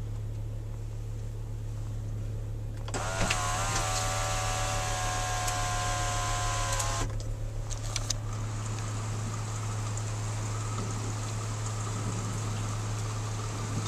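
Car's electric sunroof motor whining steadily for about four seconds as the roof slides open, then stopping with a few clicks. A steady hiss of light rain comes in through the opening afterwards, over a constant low hum.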